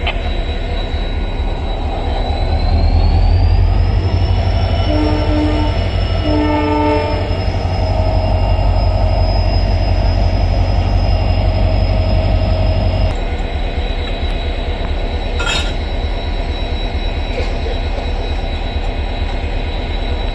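Locomotive running loudly during shunting, its high whine rising about two seconds in. It gives two short horn toots around five and six and a half seconds in, and its low rumble drops off suddenly about two-thirds of the way through.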